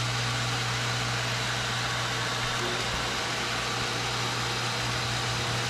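Single-speed pool filter pump motor running, switched on through the controller's relay: a steady low hum with an even rushing noise over it.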